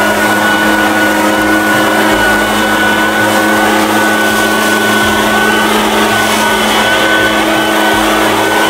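Echo PB-580T gas backpack leaf blower running at high throttle, its two-stroke engine holding one steady pitch over the rush of air from the nozzle as dry leaves are blown across the lawn.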